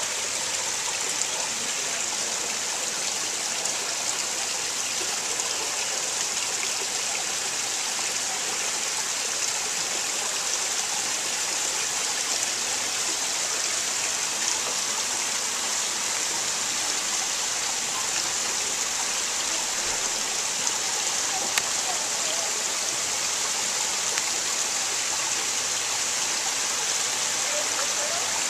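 Steady, unbroken rush of falling water, a bright hiss with no change from start to end.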